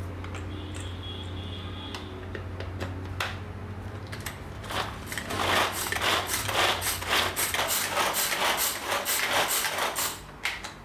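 Mini food chopper chopping onion, garlic, ginger and green chilli: a quick run of evenly repeated chopping strokes, about two to three a second, starting about four seconds in and stopping near the end. A steady low hum comes before it.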